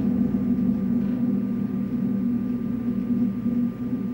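Steady mechanical hum with a thin high whine above it: a film projector running.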